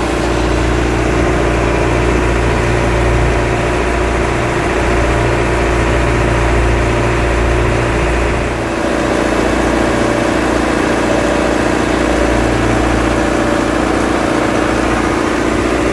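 A boat's inboard marine engine running steadily, heard up close from above its open hatch, with a slight shift in its tone about halfway through.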